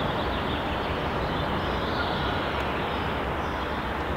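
Steady open-air background noise, an even rushing hiss with a low rumble underneath and no distinct events.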